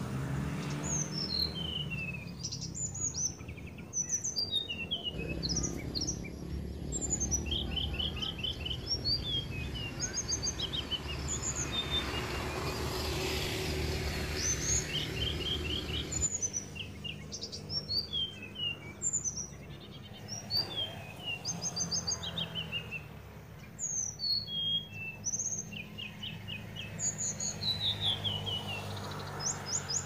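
Long-tailed shrike nestlings begging in the nest: a string of short, high chirps, many falling in pitch, some coming in quick runs of four or five, over a low steady hum.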